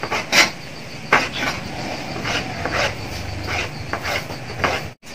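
Kitchen knife slicing tomatoes on a plastic cutting board: irregular sharp taps of the blade meeting the board, roughly one every half second, the loudest about half a second in.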